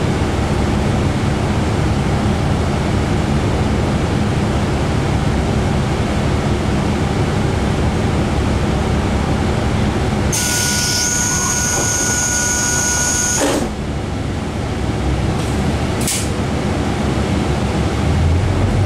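KiHa 40 diesel railcar's engine idling steadily while the car stands with its door open. About ten seconds in, a shrill tone with a hiss lasts about three seconds, and the door then slides shut with a short sharp sound a little later.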